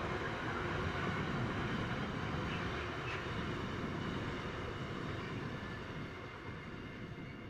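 Container wagons of a freight train rolling over the rails, a steady rumble that fades as the tail of the train moves away.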